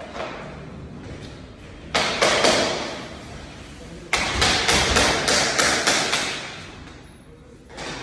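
Two bouts of rapid knocking, about three to four blows a second, echoing in a large empty hall: hammering during laminate flooring installation. The first bout comes about two seconds in and is short; the second starts about four seconds in and lasts a few seconds.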